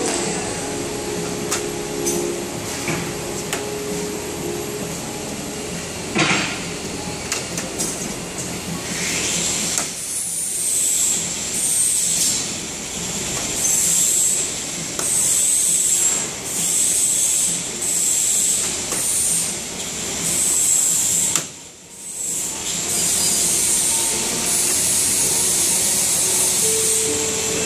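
Induction cap-sealing line running, conveyor and sealer going, with a single sharp knock about six seconds in. From about ten seconds in, a high-pitched whine comes and goes in short spells of about a second while capped plastic jars ride under the aluminium-foil sealing head.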